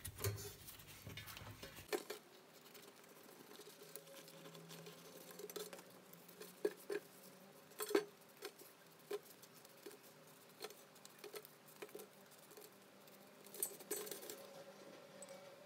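Kitchen scissors snipping through sheets of lavash flatbread: a string of short, sharp snips at irregular spacing, with the papery rustle of the bread being handled.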